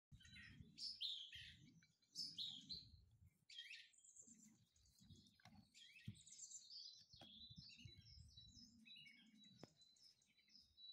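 Faint chirping of small birds in quick, high phrases, with soft low rumbles underneath.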